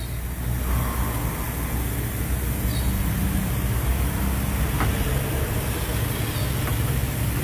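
Steady low rumble of road traffic, with a faint light click or two of metal.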